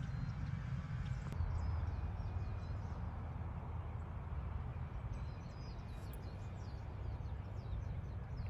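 Wind buffeting the phone's microphone as a steady low rumble, with birds chirping faintly in quick high notes, most around six to seven seconds in. One sharp click a little over a second in.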